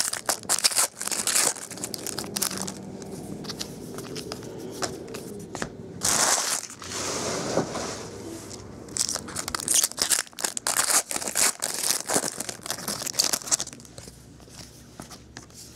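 Foil trading-card pack wrappers being torn open and crinkled, with cards handled, in irregular bursts of rustling and crackling.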